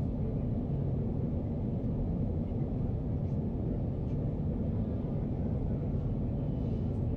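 Steady low cabin rumble of a Boeing 737 airliner in flight, jet engine and airflow noise heard from inside the passenger cabin.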